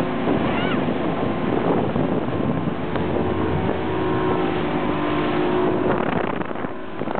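Small motorboat's engine running steadily while under way, mixed with a constant rush of wind and water noise.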